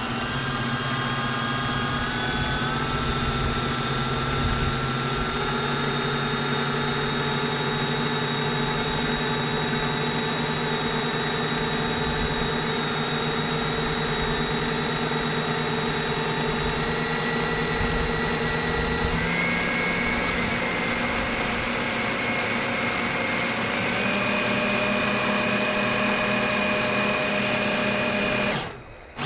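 Electric drive motor of a radio-controlled model tugboat running with a steady whine, heard through the hull. Its pitch steps up and down a few times as the throttle changes, rising clearly about two-thirds of the way through. The sound briefly drops away just before the end.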